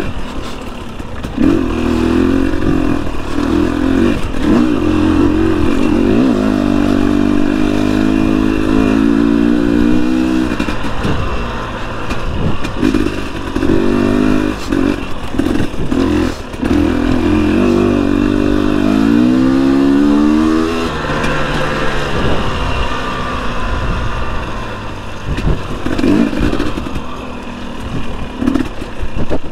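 Husqvarna TE250i single-cylinder two-stroke dirt bike engine running under a rider, its pitch rising and falling with the throttle, with one long rising rev about twenty seconds in. After that it runs lower and rougher, with knocks and clatter.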